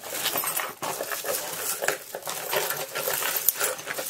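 Pieces of costume jewelry clinking and rattling together as they are handled, a quick run of small clicks.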